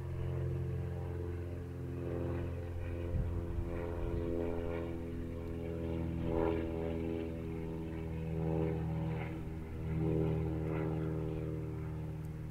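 A vehicle engine running steadily at low speed: a low, even drone that swells and eases slightly.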